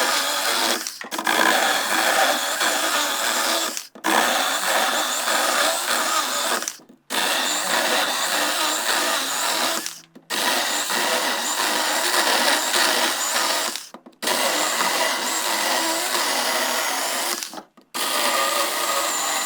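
Saker mini cordless electric chainsaw running and cutting through wood, a steady high motor-and-chain whine that stops abruptly six times for a moment and starts again.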